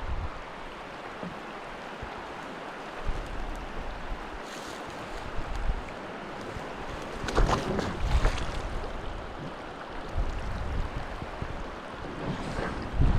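Steady rush of river water over shoals, with wind gusting on the microphone and a few louder bursts about halfway through.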